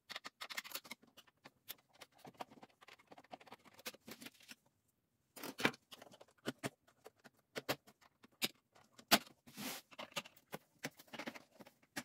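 Plastic dashboard air-vent panel of a Toyota 4Runner being rocked back and forth and pulled free of its clips, then handled: irregular light clicks, scrapes and rattles of plastic, with sharper clicks about five and a half and nine seconds in.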